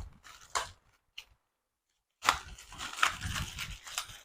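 Packaging being handled and opened: a couple of short rustles, then, from about two seconds in, steady crinkling and rustling with small clicks.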